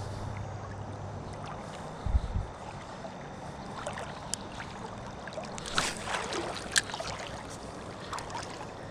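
River water running steadily. About two seconds in there is a low thump, followed by scattered clicks and splashes.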